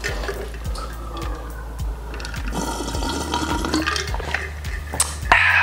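Water gurgling and sloshing in a drinking vessel, over a steady low hum.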